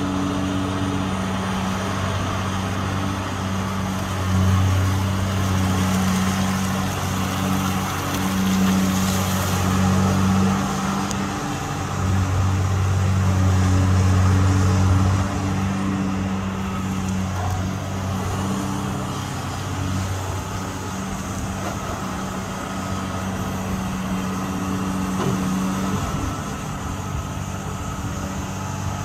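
Diesel engine and hydraulics of a long-reach dredging excavator running steadily with a low hum while it digs and lifts spoil. It grows louder twice: briefly about four seconds in, then for a few seconds around the middle.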